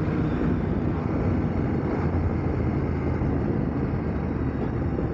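Riding noise of a KTM 890 Adventure R at steady road speed: a constant rush of wind and road noise, with the parallel-twin engine running underneath.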